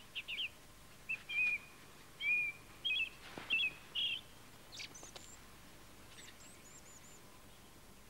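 Small songbird chirping: a quick string of short calls and trills over the first four seconds or so, then a few fainter, higher notes.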